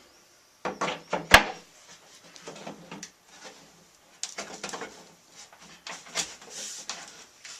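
Wooden cabinet parts being fitted together by hand: a series of knocks, taps and scrapes of wood on wood, with one sharp loud knock a little over a second in.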